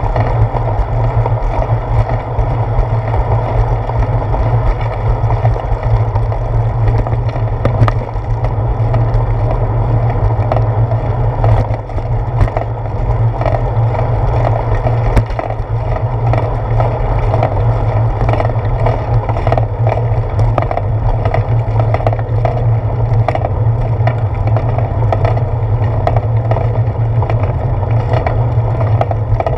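Steady rumble of a bicycle rolling along a concrete sidewalk, picked up through a handlebar-mounted GoPro, with occasional sharp knocks as the tyres cross the joints in the pavement.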